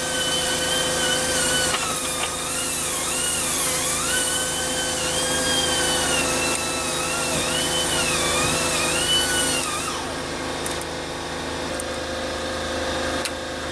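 A power tool's motor whirring, its pitch wavering up and down with a strong hiss, for about ten seconds before it stops. A steady hum runs underneath throughout.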